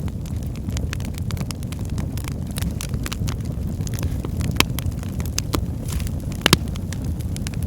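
Wood fire burning in a fireplace: a steady low rumble of flames with irregular crackles and sharp pops, two louder pops about halfway and near the end.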